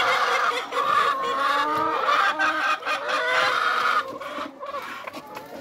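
Laying hens clucking and squawking close by, several calls overlapping. The calls die down about four seconds in, leaving a few light knocks.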